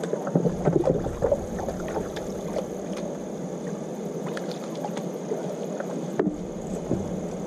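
Water lapping and gurgling against the hull of a hybrid kayak/paddleboard, with small scattered clicks and a sharper knock about six seconds in.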